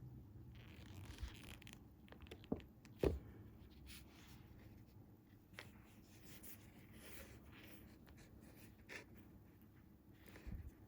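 Faint handling sounds of fishing line and hooks being worked by hand: light rustling with scattered small clicks, the sharpest one about three seconds in.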